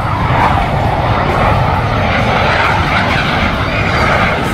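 Loud, steady jet roar from a pair of Blue Angels F/A-18 Hornets flying a low formation pass overhead, with a wavering whine riding over the noise.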